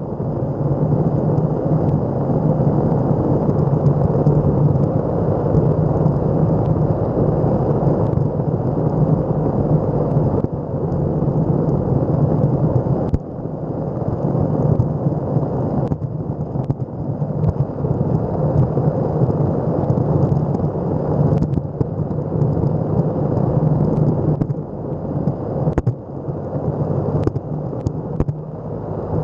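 Electric skateboard rolling fast over asphalt: a loud, continuous rumble of the wheels on the rough road surface over a steady low hum, with a few sharp clicks and knocks in the second half.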